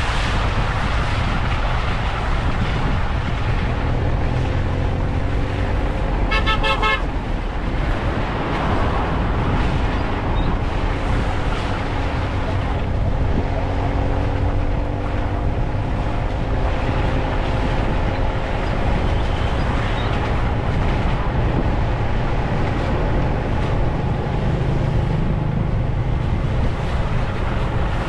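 Steady engine and road rumble from a moving vehicle, its engine pitch drifting slowly. A vehicle horn toots briefly about six seconds in.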